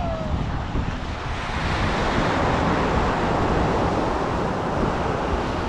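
Ocean surf breaking on the beach: a rushing wash that swells about a second and a half in and eases off near the end, with wind buffeting the microphone.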